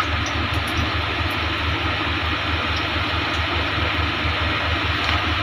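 A motor running steadily with a whirring hiss and a fast, regular low throb.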